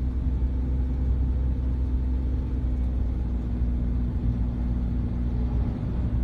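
Car driving on an asphalt road, heard from inside the cabin: a steady low rumble of engine and tyres with a constant hum.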